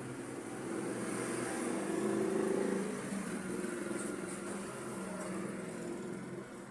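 A motor humming steadily, swelling to its loudest about two seconds in and easing off toward the end.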